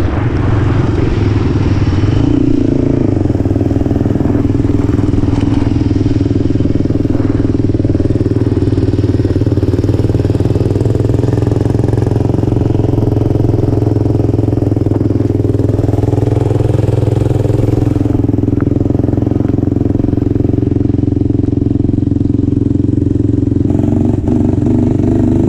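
Honda 400 ATV engine running under way at fairly steady revs, with only small changes in pitch.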